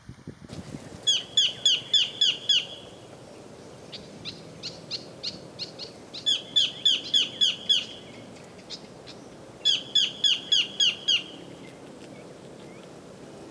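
Collared kingfisher calling: three loud runs of six or seven quick, repeated falling notes, a few seconds apart, with a softer run of notes between the first two.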